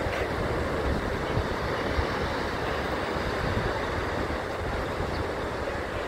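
Steady wash of sea surf breaking on a sandy beach, with wind rumbling on the microphone.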